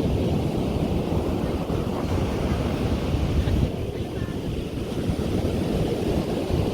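Ocean surf washing onto a beach: a steady, unbroken rush, with a low rumble of wind on the microphone underneath.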